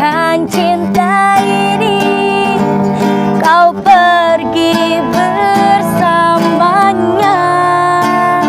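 A woman singing a slow ballad in long held notes with vibrato, accompanied by a steadily strummed acoustic guitar.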